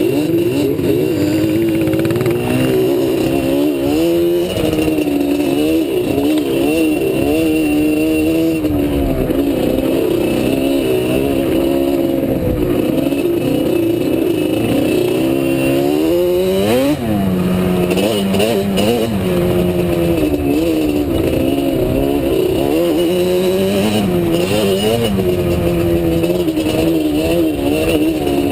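ATV engine running while riding, its pitch rising and falling continually with the throttle, with a quick sharp rev about 17 seconds in.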